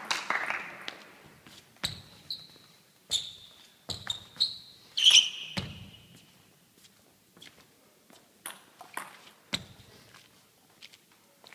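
A table tennis ball bouncing on hard surfaces, a short click with a high ringing ping each time. It bounces several times at uneven intervals, loudest about five seconds in, then gives a few fainter taps.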